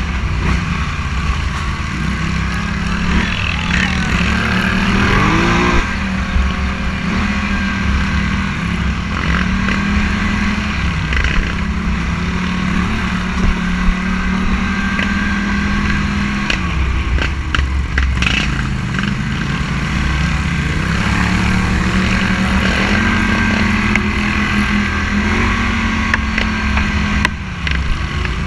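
Scrambler 1000 motorcycle engine running under way, its note rising and falling with throttle and gear changes, over a rough low rumble of wind on the microphone.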